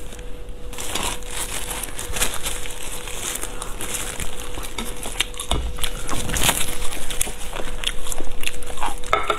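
Biting into and chewing a Northeastern Chinese blood sausage, with many short wet clicks and smacks of mouth and sausage skin, and the crinkle of plastic food gloves handling it. A faint steady hum runs underneath.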